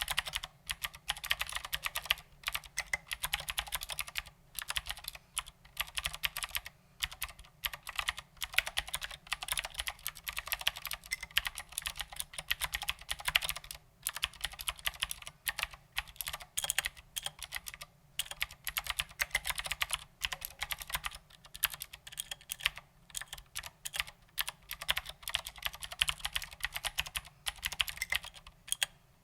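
Typing on a mechanical keyboard with Cherry MX Blue switches and SA-profile ABS doubleshot keycaps: a rapid, continuous stream of sharp clicks with a few short pauses.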